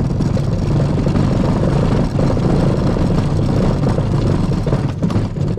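Kayak hull being dragged down a grooved boat ramp: a loud, continuous rough rumble as the hull scrapes over the ridges, picked up through a camera mounted on the kayak.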